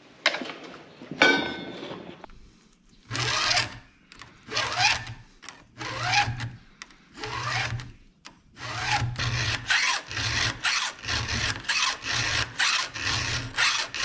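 Chainsaw chain being hand-filed while clamped on its bar in a bench vise: scraping file strokes across the cutter teeth. The strokes are slow and spaced at first, then quicker at about two a second. A couple of knocks come near the start.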